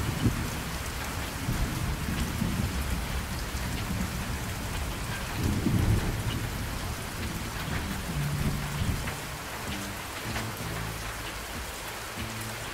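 Steady rain-like hiss with swelling low rumbles. About eight seconds in, a low steady drone comes in and sounds on and off.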